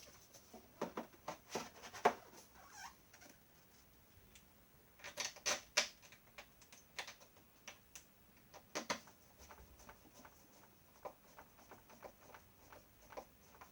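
Hoover Vortex vacuum cleaner parts handled and fitted together: irregular light clicks and taps, with a louder cluster of clicks about five to six seconds in and another near nine seconds.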